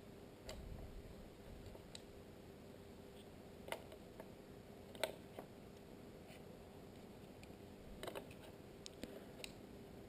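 Faint, scattered clicks and light taps of small IP-camera parts being handled during assembly, about seven or eight in all, the loudest about halfway through.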